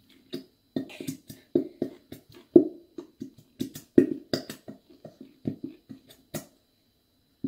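A squeezed plastic bottle of Elmer's clear glue sputtering as glue and trapped air are forced out of the nozzle, in a run of short, irregular squelches about two or three a second.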